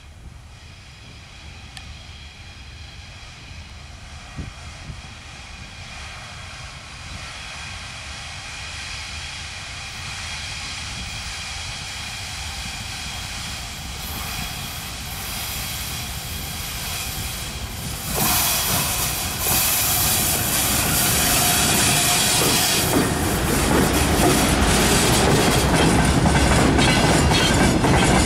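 VL10 eight-axle DC electric freight locomotive approaching with its noise growing steadily louder, then passing close with a sudden jump in loudness about 18 seconds in. Its train of open freight wagons follows, rolling past with wheels clicking over the rails.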